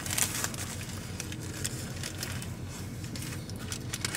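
A soft-shell taco bitten and chewed without any crunch, its paper wrapper crinkling near the start, over a steady low hum inside a car.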